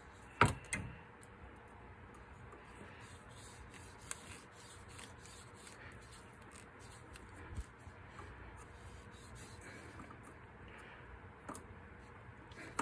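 Hose pliers gripping and twisting an old coolant hose on a corroded metal pipe: quiet rubbing and scraping, with a sharp click about half a second in and a few fainter clicks later.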